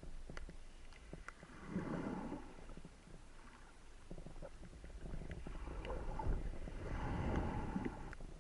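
Underwater sound from a freediving spearfishing camera: water swishing and rushing past in two swells, with scattered sharp clicks and crackles.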